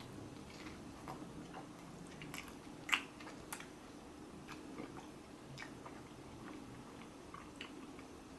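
A person chewing a mouthful of chicken sandwich on a soft pretzel bun: faint, irregular mouth clicks, with one sharper click about three seconds in.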